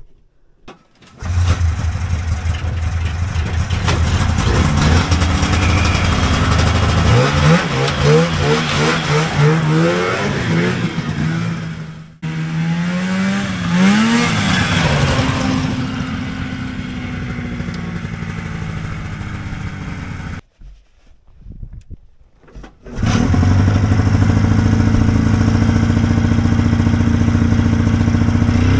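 Polaris TX340 snowmobile's twin-cylinder two-stroke engine running as the sled is ridden, its pitch rising and falling with the throttle. The sound breaks off suddenly twice, then settles into a steady engine note near the end.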